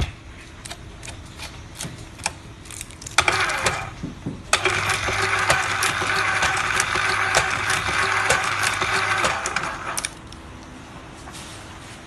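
ZCUT-2 automatic rotary-disc tape dispenser running, with a steady motor hum and repeated sharp clicks. From about four and a half to ten seconds in it grows louder and noisier, with dense clicking, as it feeds and cuts tape pieces onto the turning disc.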